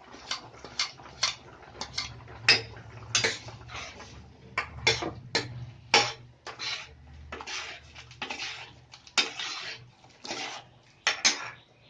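A spoon clinking and scraping against a cooking pot while cooked toor dal is added to the sambar and stirred in: many irregular sharp knocks mixed with a few longer scrapes.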